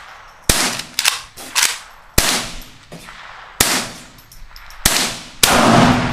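Rifle shots under a range shelter roof from a Marlin Model 60 .22 semi-automatic and an AK-pattern rifle: seven sharp single shots, irregularly spaced half a second to a second and a half apart, the last, near the end, the loudest, with a long echo.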